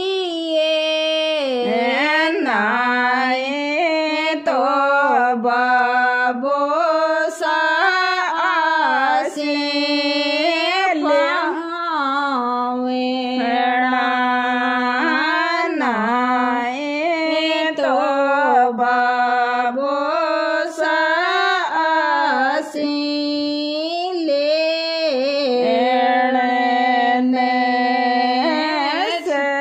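A woman singing a Tejaji geet, a Rajasthani folk devotional song, in long held notes that bend and slide between pitches, with no steady beat.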